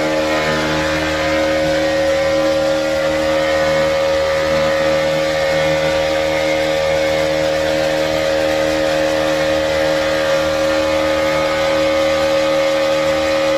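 Motor of a small passenger boat running steadily at cruising speed, an even engine drone with a rushing hiss of water and air, heard from on board.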